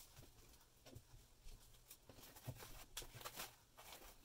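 Faint rustling and a few soft crinkles of a thin foam wrapping sheet being handled and folded around a stone.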